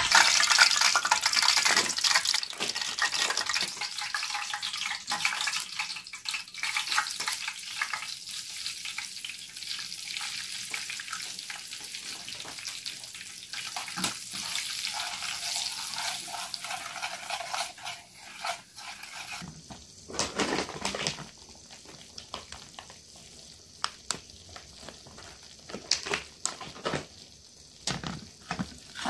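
Hot fat sizzling in a metal frying pan as flour is stirred into it with a metal spoon. The sizzle fades about two-thirds of the way through, leaving the spoon clicking and scraping against the pan.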